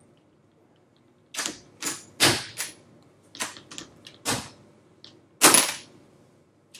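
Metal latches of a vintage suitcase being worked open: a string of sharp clicks and snaps, irregularly spaced, with the loudest snap near the end.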